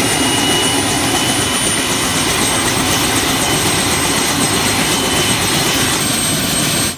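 Bell 206 JetRanger helicopter running on the ground after its turbine start: the turbine's steady high whine over a loud rush of engine and main rotor noise.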